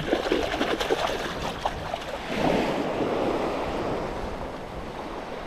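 Small surf waves washing onto a sandy beach, with a swell of washing water about two seconds in, and wind buffeting the microphone.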